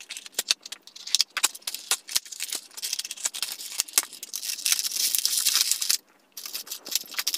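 Thin clear plastic blister packaging crackling and clicking as it is handled, with small plastic toy accessories rattling inside the tray. It cuts out briefly about six seconds in, then the crackling resumes.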